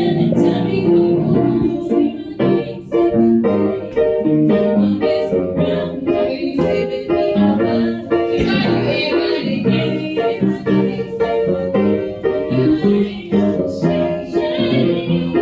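Music with a keyboard and singing.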